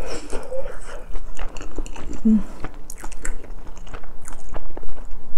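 Close-miked chewing of a mouthful of cheese fried rice, with wet mouth clicks and crackles and a short hummed "mm" about two seconds in.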